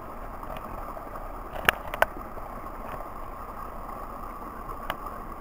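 A small woodland brook running with a steady rush of water, with a few sharp clicks from twigs or footsteps on the forest floor about two seconds in and near the end.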